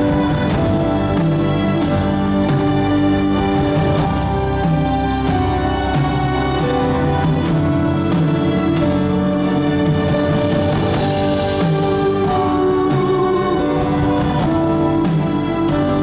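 Live band playing an instrumental passage of a slow ballad, acoustic guitar over sustained chords, with no singing.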